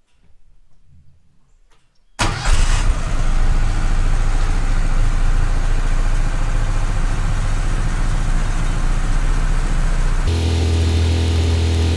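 Wood-Mizer LT15 sawmill's engine starting about two seconds in and then running steadily and loudly. Near the end its tone shifts lower and fuller.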